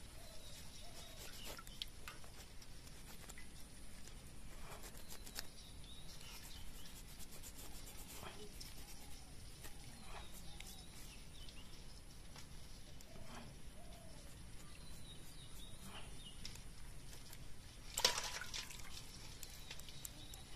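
Natural-fibre loofah scrubber rubbing and scraping over a live mud crab's shell in repeated short strokes, scrubbing off the mud, with one louder burst near the end.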